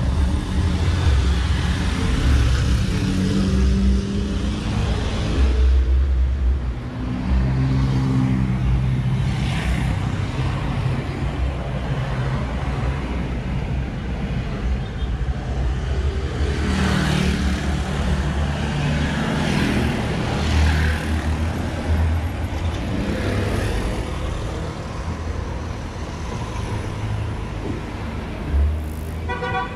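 City street traffic: car and truck engines rumbling low and steady, with vehicles passing by now and then.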